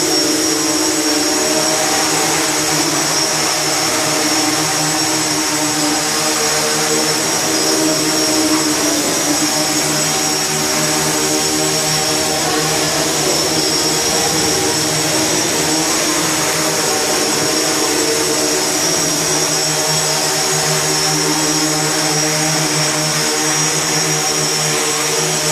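X8 octocopter's eight electric motors and propellers buzzing steadily as it hovers, a stack of low tones that waver slightly in pitch as the flight controller corrects, with a high whine above them.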